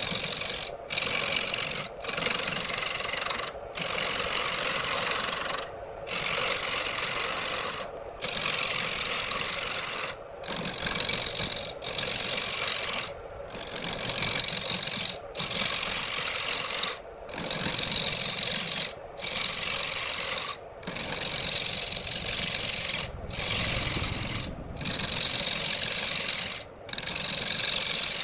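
Rough rasping of an abrasive or rasp against wood, in about fourteen even strokes roughly two seconds apart with brief breaks between them, over a faint steady hum.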